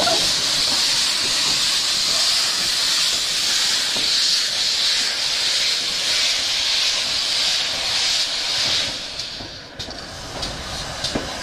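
Steam hissing steadily from a preserved GWR steam locomotive, dying away about nine seconds in, followed by a few light clicks.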